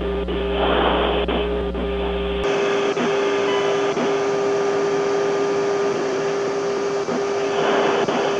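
Steady hum and hiss of an open aircraft radio channel with a constant mid-pitched tone. The hiss swells briefly about a second in and again near the end.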